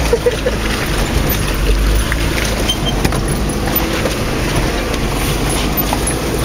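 Vauxhall Frontera Sport heard from inside the cabin, its engine running steadily as it drives slowly over a rough off-road forest track. A few sharp knocks and rattles from the body come as it crosses the uneven ground.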